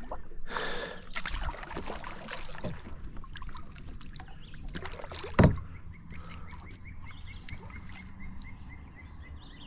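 Kayak moving on a river: water washing and splashing against the hull in short irregular splashes, with one louder knock about five seconds in. A faint rapid run of short chirps, about four a second, comes in during the second half.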